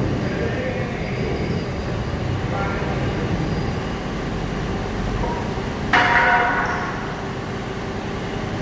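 Steady low mechanical rumble, with a single ringing metal clang about six seconds in that dies away over about a second, like heavy steel parts striking each other.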